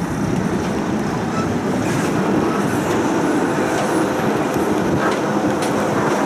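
Budapest tram running along its track, heard from inside the car: a steady rumble with a few sharp clicks.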